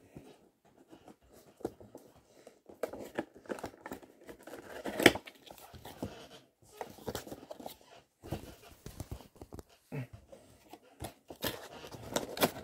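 A cardboard toy box with a clear plastic window being worked open by hand: irregular crinkling, rustling and tearing with scattered sharp clicks, and one louder snap about five seconds in.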